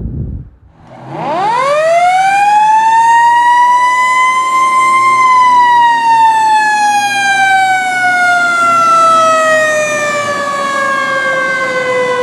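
Fire truck's mechanical siren winding up from a low growl to a high wail in about four seconds, then slowly winding back down.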